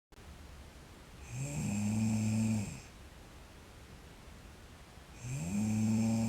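A sleeping girl snoring: two long snores, the second starting about five seconds in. Each is a low, steady drone that slides in at the start and fades out at the end.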